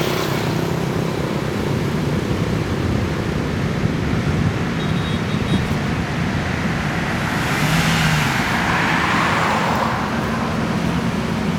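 Steady road traffic with engines and tyres, and one vehicle passing close about eight seconds in.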